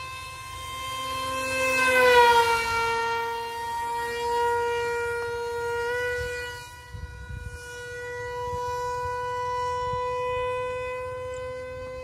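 Electric ducted-fan motor of an RC foam Su-27 model jet whining in flight: a steady high whine that swells and drops in pitch as the jet passes close about two seconds in, steps up slightly in pitch around six seconds, then holds steady. Wind rumbles on the microphone throughout.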